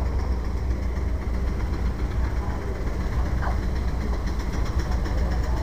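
A vehicle engine running steadily, a low rumble.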